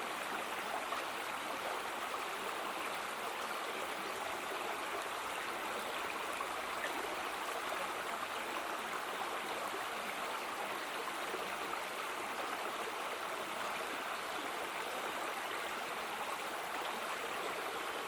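Mountain stream water running steadily.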